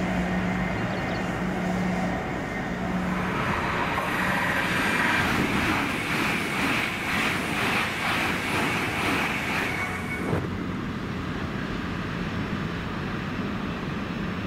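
A train passing on the railway. A low engine hum comes first, then a louder rush of wheels on rail from about four seconds in, which eases off at about ten seconds with a single knock.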